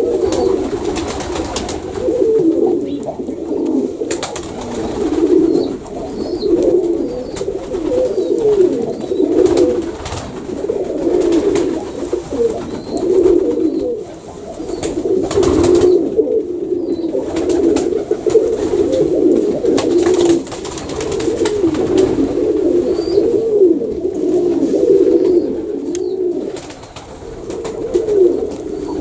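Domestic Baku pigeons cooing, one call after another, with calls overlapping almost without pause.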